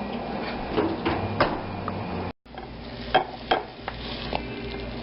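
Dishes and utensils clinking and knocking in a kitchen: a handful of separate sharp strikes over a low steady hiss, breaking off to silence for a moment midway.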